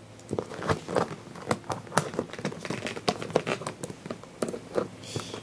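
Plastic packaging crinkling and crackling in irregular sharp clicks as it is pulled and worked at by hand to get it open.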